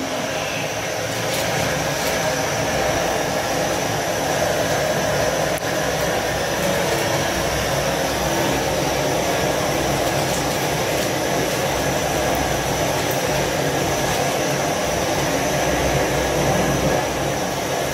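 Steady rushing hiss of a gas-cylinder burner flame under a large aluminium pot of boiling water.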